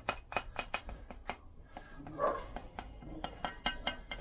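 A quick, uneven run of light metallic clinks and taps: hand tools and small metal parts knocked and shifted about on a workbench while the sealant tube is picked up.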